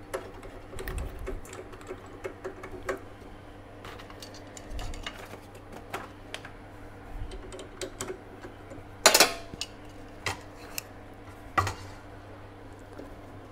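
Scattered clicks and metallic clatter of tools being handled at a benchtop drill press while bits are changed and the work is clamped, over a steady low hum. The loudest knock comes about nine seconds in, with two more sharp ones shortly after.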